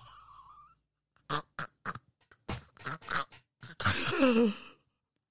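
A man laughing: a run of short breathy bursts, then a longer laugh that falls in pitch near the end.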